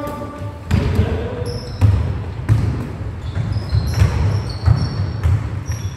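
A basketball bouncing on a sports-hall court, with low thumps about every half second, mixed with short high squeaks of trainers on the floor.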